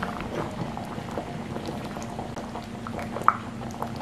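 Coconut-milk fish curry simmering in an open clay pot, small bubbles popping irregularly, with one louder pop about three seconds in. A faint steady hum runs underneath.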